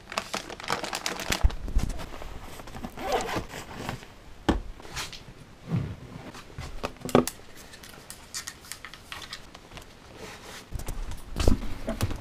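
Plastic packaging crinkling and rustling as small items are picked up by hand from a table, with scattered clicks and knocks, and a few heavier thumps near the end.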